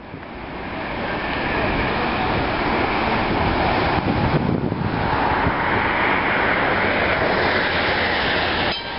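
RET ZGT articulated tram rolling in slowly on street rails, a steady rumble of wheels and running gear that fades in over the first second or two.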